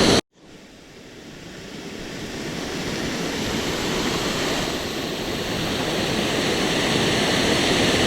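Steady rushing of a waterfall, cutting out for a moment just after the start and then fading back in over a few seconds.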